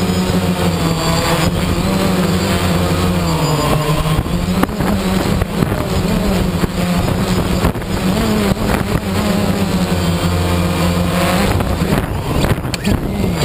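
Phantom quadcopter's motors and propellers whirring, recorded from the GoPro on board, their pitch rising and falling as the drone manoeuvres, with wind noise over the microphone. Near the end a few knocks as the drone comes down into grass.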